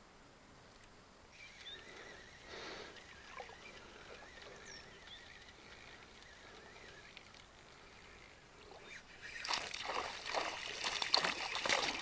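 Water splashing and sloshing in a quick irregular run, starting about nine seconds in after a quiet stretch.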